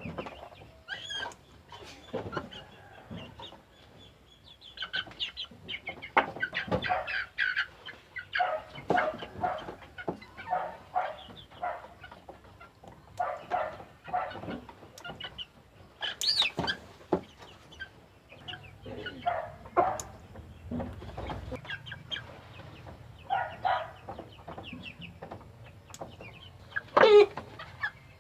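A flock of young Aseel-cross chickens clucking and calling in many short, overlapping calls, with one louder call near the end.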